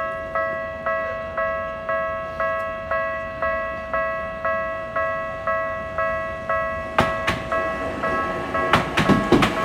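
Japanese railway level-crossing warning bell ringing about twice a second while the barriers are down. Near the end an electric commuter train reaches the crossing, and its wheels clatter over the rail joints.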